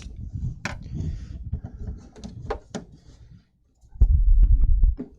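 Scattered clicks and taps of a flathead screwdriver working at the fuse holder in the plastic case of a Ridgid jobsite radio. About four seconds in, a louder low rumble of handling lasts about a second, with a few clicks through it.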